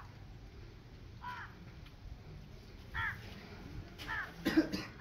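Crows cawing several times at irregular intervals. Near the end a louder, lower short sound stands out among the calls.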